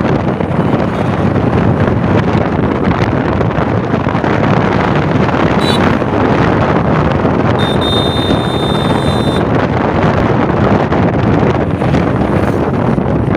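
Steady wind buffeting the microphone of a motorcycle riding at speed, mixed with road and engine noise. A high, steady tone sounds for about two seconds a little past the middle.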